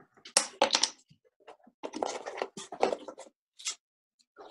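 Rustling and light clicking of paper, cardboard and plastic being handled in a few short bursts with pauses between: hands working a toilet-paper-roll owl puppet and plastic bottle caps.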